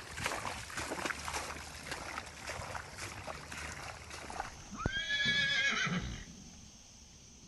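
Floodwater gushing and splashing out of a pump's discharge pipe. About five seconds in, a horse whinnies: one call that shoots up in pitch and then wavers for about a second.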